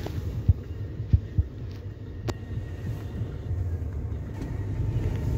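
Steady low rumble of a car driving on a city road, with three soft low thumps between about half a second and a second and a half in, and a sharp click a little after two seconds.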